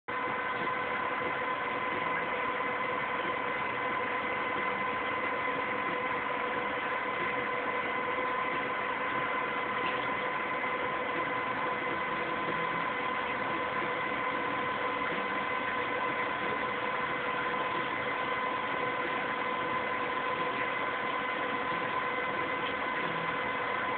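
Steady hiss with a constant whine of several even pitched tones, an unchanging machine or electrical hum.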